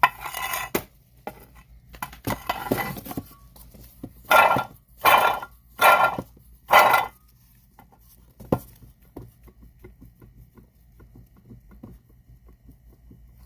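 Noise from the failing water pump of a Mercedes W163 M-Class: a steady low hum with a series of loud bursts about half a second long, four of them in quick succession near the middle, then light repeated ticking.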